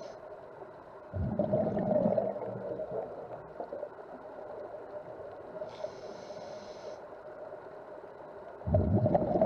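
Underwater, a scuba diver breathes through a regulator. A burst of exhaled bubbles rumbles about a second in and again near the end, a hiss of inhaling comes in between, and a steady hum sounds under it all.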